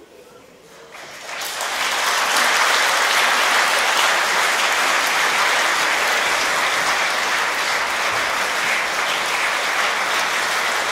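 Audience applauding at the end of a song: the clapping starts about a second in, swells quickly and then holds steady.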